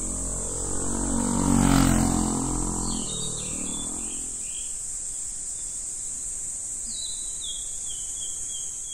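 A motor vehicle passes by, swelling to its loudest about two seconds in with its engine pitch dropping as it goes past. Under it runs a steady high drone of summer cicadas, with short descending bird chirps twice.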